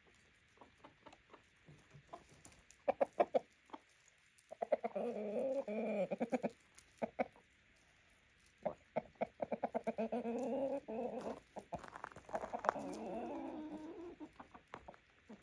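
Chickens clucking: a few short, soft clucks at first, then from about four seconds in longer runs of low, warbling clucks that pause briefly twice.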